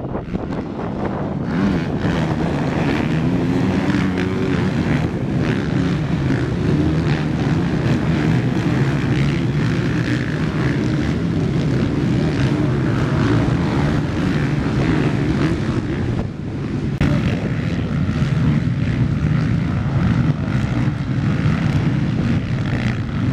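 Motocross bikes' engines revving as the riders race over the jump and past in a pack, the pitch rising and falling with the throttle.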